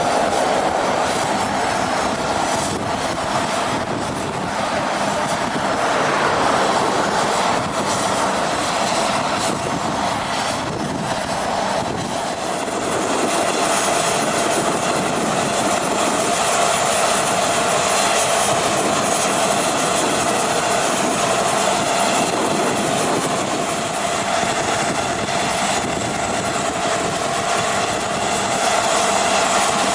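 Boeing 757-200's jet turbines running steadily: a constant whine over a loud, even hiss.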